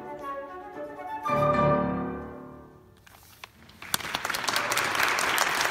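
Flute and piano play the closing notes of a classical piece, ending on a final chord about a second in that dies away. After a brief hush, an audience applauds from about four seconds in.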